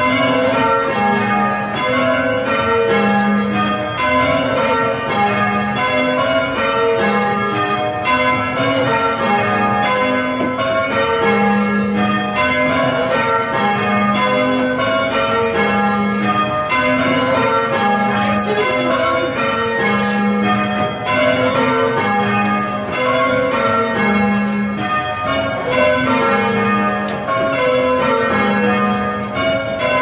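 The back five bells of a Gillett and Johnson ring of eight, rung full circle by rope, ringing rounds: each bell strikes in turn from highest to lowest in a steady, evenly spaced cycle that repeats, heard from the ringing chamber below the bells.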